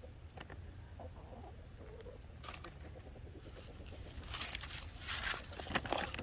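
Buff Orpington chickens clucking, with a stretch of louder scratchy noise in the last couple of seconds.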